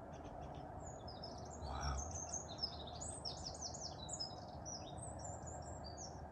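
Songbirds chirping: a busy run of short, high notes over a faint steady background noise, with one brief low thump about two seconds in.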